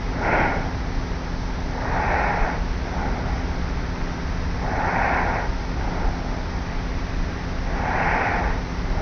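A young woman sleeping on her back, snoring lightly and evenly, recorded close to her pillow: four soft breaths, about one every three seconds. A steady low hum and hiss from the cassette recorder run beneath.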